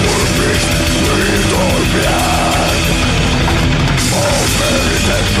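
Heavy metal music playing loud and dense, distorted guitars and a drum kit; the cymbals drop out for about a second partway through, then come back.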